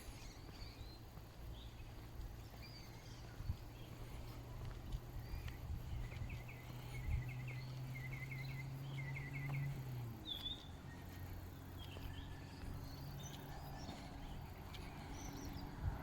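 Outdoor riverside ambience: birds calling on and off, with a run of quick repeated chirps in the middle, over a low steady hum that cuts out about two-thirds of the way through.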